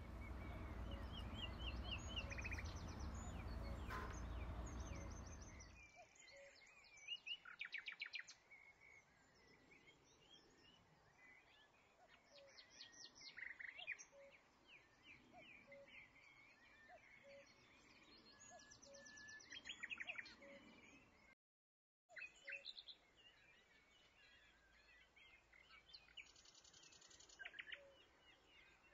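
Birds chirping in short, rapid trills every few seconds over faint background noise, with a louder steady noise underneath for the first six seconds.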